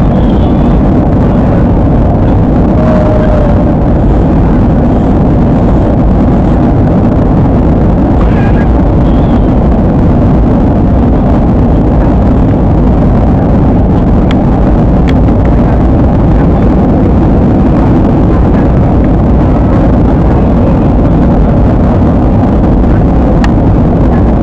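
Steady, loud cabin noise inside a jet airliner in flight: the constant rush of engines and airflow, unchanging throughout.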